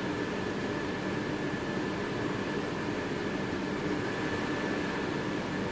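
Steady mechanical hum with an even hiss, unchanging throughout, with no distinct events.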